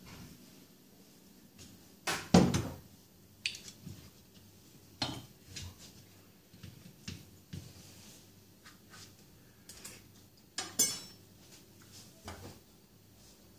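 Scattered irregular clicks and knocks over a quiet room, the loudest a thump about two seconds in and another pair near eleven seconds.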